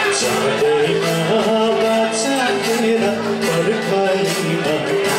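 Live music: a singer performing a song over steady instrumental accompaniment.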